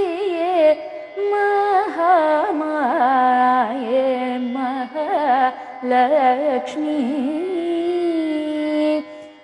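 A woman singing a Carnatic devotional song, drawing out long ornamented notes with sliding, wavering gamakas over a steady drone, her phrase tapering off near the end.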